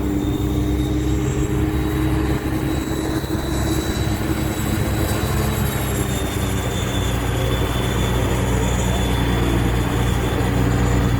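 Amphibious air-cushion vehicle's engine and air propeller running steadily, a low drone with a thin high whine above it.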